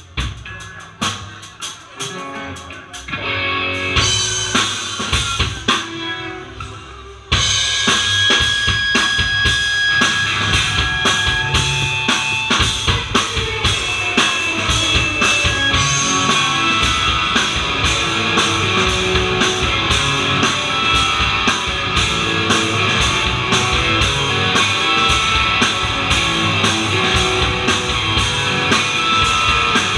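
Live rock band starting a song: a drum beat alone at first, guitars joining about four seconds in, then the full band coming in loud about seven seconds in and playing on without vocals.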